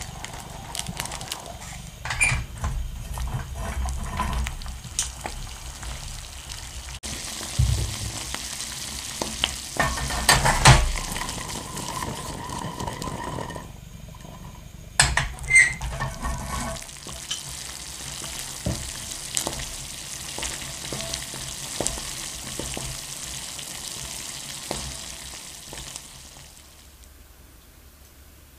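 Shelled ginkgo nuts cooking in a shallow layer of liquid in a hammered stainless yukihira pan: a steady sizzling hiss with several knocks and rattles as the pan is shaken and the nuts roll against the metal. The hiss stops near the end.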